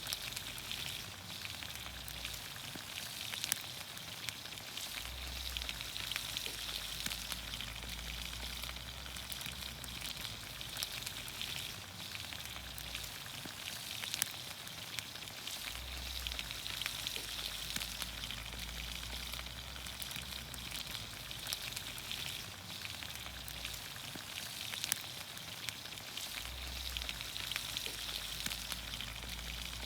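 Vegetables in olive oil sizzling in a pan over a campfire: a steady sizzle with scattered sharp pops and crackles.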